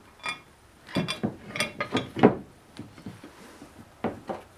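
Steel bolts and hitch parts clinking and knocking together as they are handled and fitted. A run of sharp metallic clicks, thickest about a second in, with a couple more near the end.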